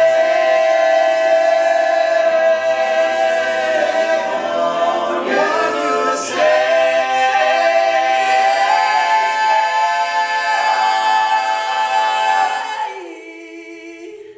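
Men's a cappella group singing long held chords in close harmony, with the voices shifting between chords midway. Near the end the chord dies away, leaving one lower voice holding a note briefly.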